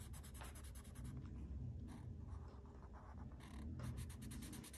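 Pen scratching on a paper savings tracker card in runs of quick back-and-forth strokes with short pauses, over a low background rumble.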